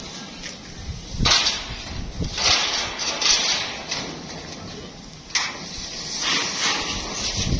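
Long corrugated metal roofing sheets scraping as they are slid off a stack on a truck bed. A loud scraping starts about a second in, eases off, and starts again suddenly about five seconds in.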